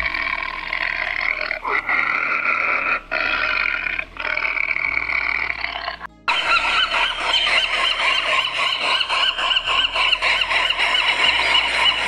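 Animal calls in two separate stretches. The first lasts about six seconds and is broken by short gaps. After a brief cut comes a denser, continuous chorus of calls.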